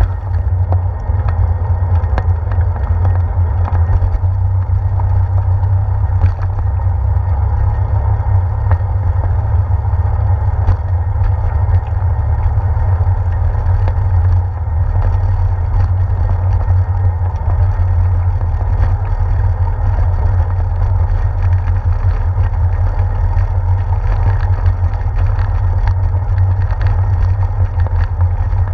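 Steady low rumble of wind and riding vibration on a handlebar-mounted GoPro Hero 4 as a bicycle rolls along a paved path and onto a wooden boardwalk, with faint light clicks scattered through it.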